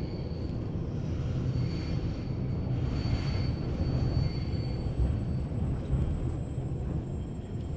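Steady low rumble of a moving PKP type 120A passenger coach, heard from inside, its wheels running on the track behind an electric locomotive. A faint, thin high whine comes and goes above the rumble.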